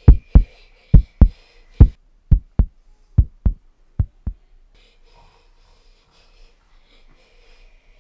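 Heartbeat sound effect: deep double thumps, lub-dub, about once a second, fading away and stopping about four seconds in.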